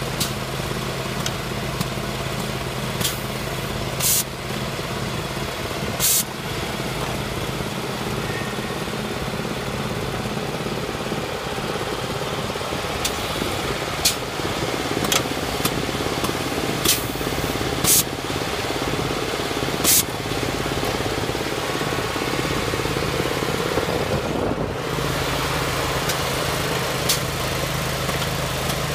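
Air2G2 air-injection turf aerator's petrol engine running steadily, driving its air compressor, with about ten short, sharp blasts of compressed air at irregular intervals as the probes release air into the turf.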